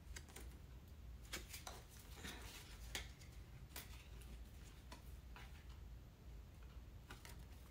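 Faint scattered clicks and light rustling of small plastic and paper pieces being handled and unpacked by hand, over a low steady room hum.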